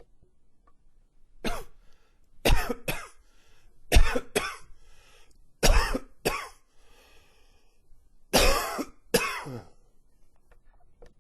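A man coughing in a fit: nine sharp, loud coughs, one alone and then four pairs, with short pauses between them.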